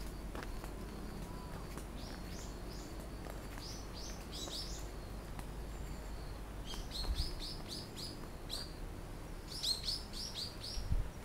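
Small birds calling from the trees: short, high chirps that sweep downward, given in quick runs of five to seven notes a few seconds apart. A couple of low thumps come under them.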